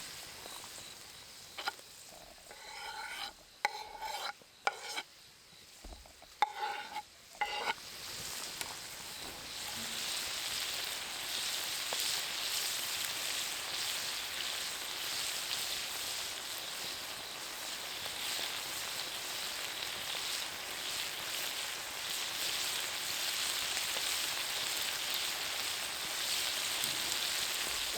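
Food frying in a pan: a few short sharp clinks early on, then from about nine seconds in a steady sizzling hiss.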